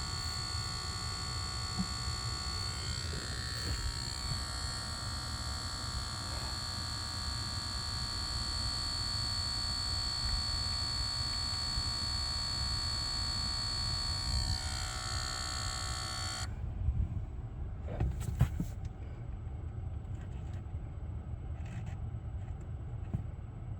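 Steady high-pitched electronic buzz in a Lucid electric car, a fault that resets and profile switching have not cured, cutting off suddenly about two-thirds of the way through. A low rumble continues, with a few clicks after the buzz stops.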